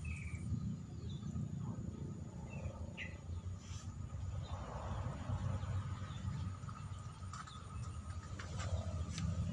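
Outdoor ambience: a few short, high bird chirps, mostly in the first three seconds, over a steady low rumble.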